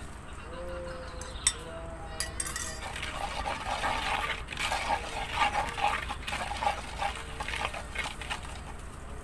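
Pestle grinding and scraping a wet petis-and-peanut rujak sauce in a wide mortar (cobek), in rhythmic strokes of about two a second from about three seconds in until near the end. A few sharp clicks come before it.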